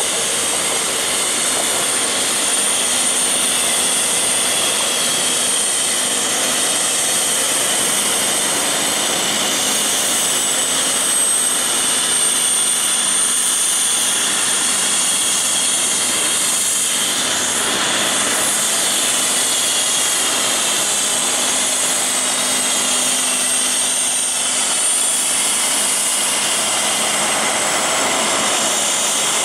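Heavy semi truck running steadily as it tows a lowboy trailer loaded with a fishing boat: a constant hiss with a thin high whine that drifts slightly in pitch.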